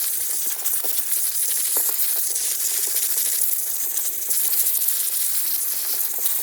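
Compressed air blowing dust and debris out of a chainsaw: a continuous loud hiss.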